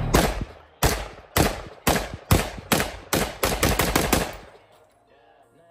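A string of about a dozen gunshots fired at a steel target, about half a second apart at first and quickening near the end, stopping about four and a half seconds in.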